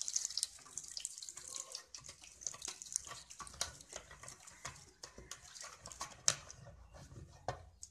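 Wooden masher stirring and mashing wet cooked moringa greens in a clay pot: irregular wet squelches and scattered sharp clicks, one sharper click about six seconds in. The sizzle of the hot tempering oil just poured in dies away in the first half-second.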